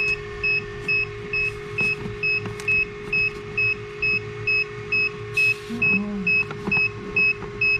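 Egg incubator's alarm beeping steadily, about two short high beeps a second, signalling a change in temperature, over a steady low hum. Eggs knock lightly as they are shifted in the tray.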